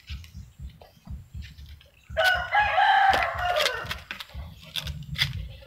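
A rooster crowing once, a pitched call of about two seconds that starts about two seconds in, held and then falling away at the end.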